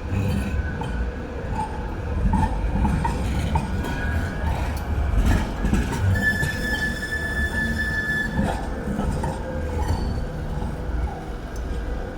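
Manchester Metrolink tram moving on its street rails: a low rumble with scattered wheel clicks, and a high steady wheel squeal for about two seconds just past the middle.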